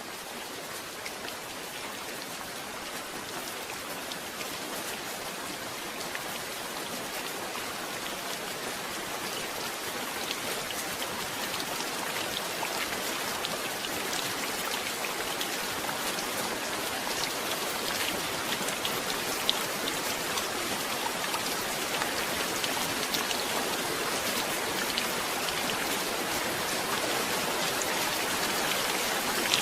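Steady rain falling, with many small drop ticks through the hiss, growing gradually louder.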